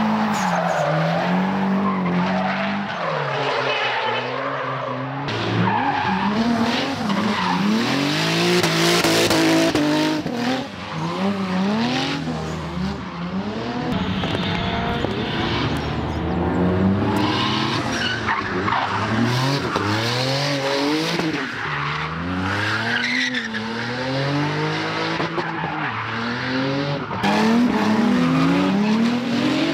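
Drift cars sliding sideways: engines revving hard, their note swooping up and down again and again as the throttle is worked, over the constant hiss and squeal of spinning rear tyres.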